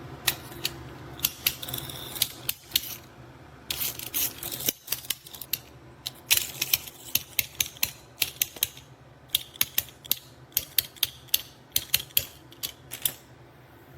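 Small plastic pull-back toy cars' spring-and-gear motors ratcheting and clicking as the cars are wound back and let go, in irregular bursts of sharp clicks.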